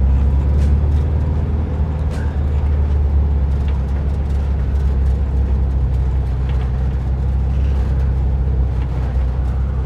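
VW split-window bus engine running steadily as the bus crawls over a rough, rutted dirt trail, with a few light knocks and rattles from the body.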